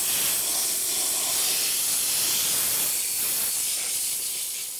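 Compressed-air chemical spray gun blasting cleaning solution into a car's door sill: a steady, loud hiss of escaping air and spray that tapers off at the end.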